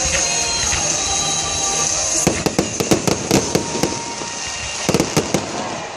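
Aerial fireworks bursting. A rapid run of sharp cracks and pops starts about two seconds in, and another short cluster comes near the end. Music plays underneath, clearest in the first two seconds.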